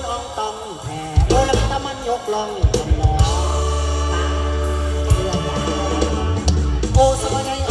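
Live mor lam band music: a singer's voice glides over a held electric bass line with drum kit hits.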